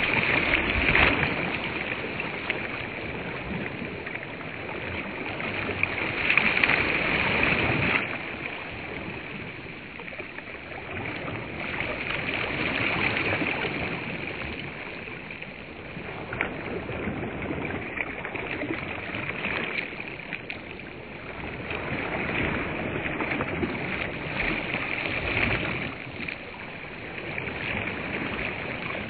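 Small waves washing onto a sandy reservoir shore, the wash swelling and fading every few seconds.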